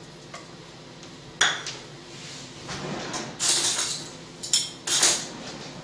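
Dishes and kitchen utensils being handled and clinking, with a sharp clink about a second and a half in, followed by several short handling noises.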